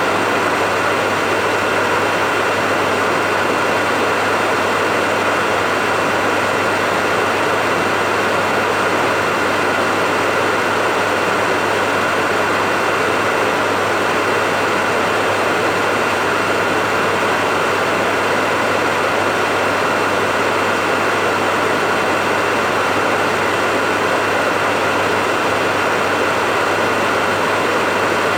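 Hair dryer running steadily: an even rush of blown air over a constant low motor hum, with no change in speed.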